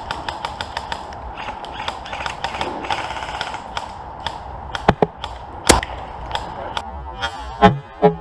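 Airsoft gunfire: a steady scatter of sharp clicks and cracks, several a second, with a few louder snaps about five and six seconds in and a cluster of heavier knocks near the end.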